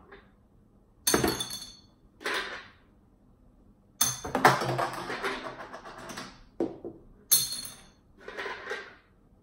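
Ring toss rings striking small glass hot sauce bottles, clinking and clattering against the glass. About six separate hits, with a longer rattle of bounces about four seconds in.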